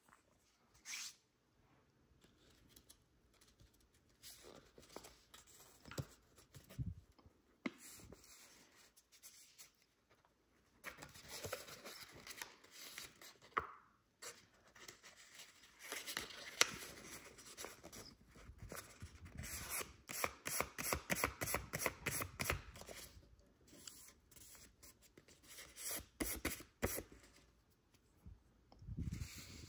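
A square sheet of origami paper being folded and creased by hand: irregular crinkling and rustling, with a run of quick rubbing strokes past the middle as the folds are pressed flat.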